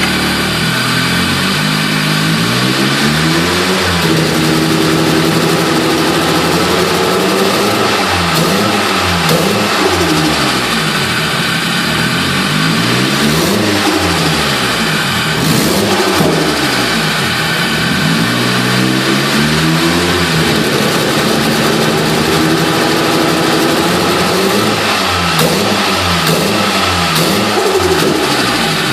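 Nissan SR20DET turbocharged four-cylinder revving up and down repeatedly, with the revs held up for a few seconds early on. It is running poorly when accelerating, with a misfire whose cause is not yet known.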